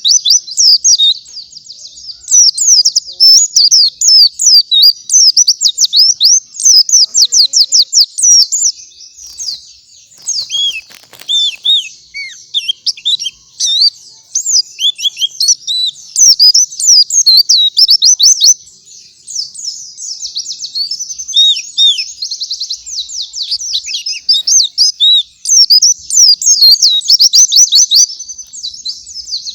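Pleci (white-eye) singing at full volume: a long, fast, high-pitched chattering warble of rapid chirps and trills, broken only by a few short pauses.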